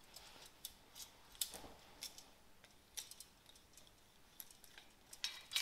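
Scattered faint metallic clicks and ticks as a hand-held flaring tool is worked on a 5 mm brake pipe.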